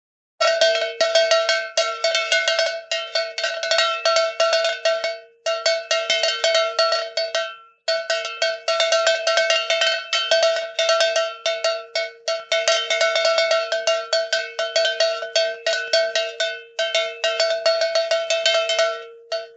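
Cartoon sound effect of a metal bell struck in rapid, continuous strikes, in long runs broken by short pauses roughly every two to five seconds. A lower ringing tone holds on through the pauses.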